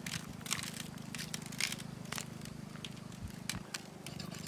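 Coarse salt crystals sprinkled by hand onto a tray of raw dressed quail, landing as irregular ticks and crackles, over a low steady hum.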